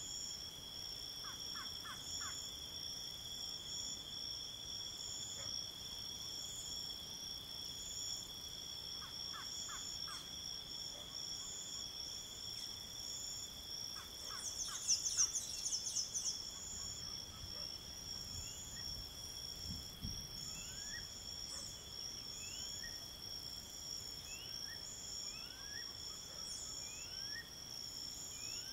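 Steady high-pitched insect drone made of several unbroken tones, one of them pulsing, with short animal calls over it. The loudest is a brief shrill chattering burst about halfway through, and a series of short rising chirps comes in the last third.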